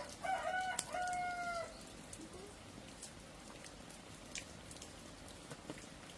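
A rooster crows once, a flat call of about a second and a half in two parts. Rain drips and ticks around it.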